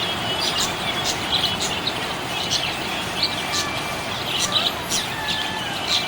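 Small pet parrots chirping: quick, irregular high chirps, several a second, over a steady hiss.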